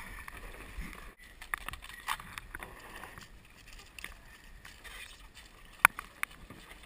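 Sea kayaks landing on a pebble beach: scattered light clicks and scrapes of hulls and paddles on stones, with one sharp knock near the end.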